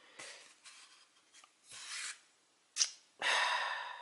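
A few short rubbing, scraping sounds of something being handled, with a sharp click about three quarters of the way in and the longest, loudest scrape near the end.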